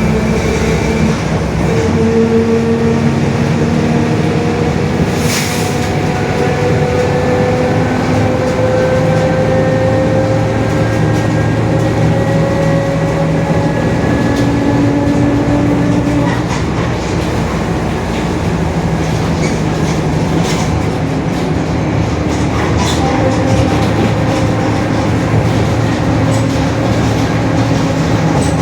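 Mercedes-Benz OF-1721 BlueTec 5 city bus under way, its diesel engine and drivetrain running with a growling differential. A whine climbs slowly in pitch for about fourteen seconds, fades, and returns near the end, over body rattles and a sharp knock about five seconds in.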